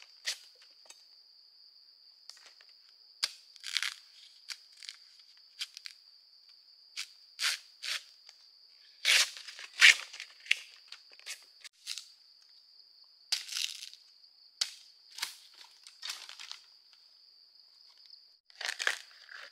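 Irregular crunching and crackling of dry material, in about a dozen separate bursts, over a steady high-pitched insect drone.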